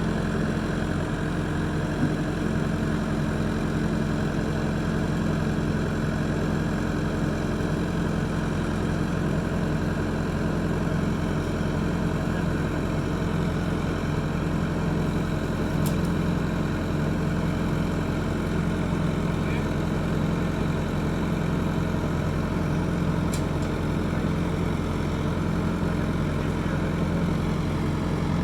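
John Deere 450 crawler's engine running steadily at an even, low speed.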